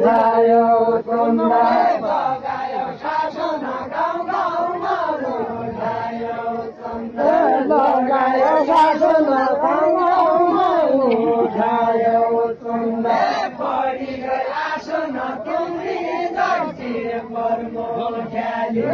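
A large crowd of villagers chanting a folk song together in unison, in long phrases that rise and fall with some held notes.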